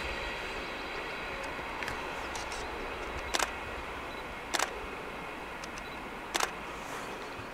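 Passenger train hauled by an Sr1 electric locomotive running away into the distance, its steady rail noise slowly fading. Three sharp double clicks are heard about three, four and a half, and six seconds in.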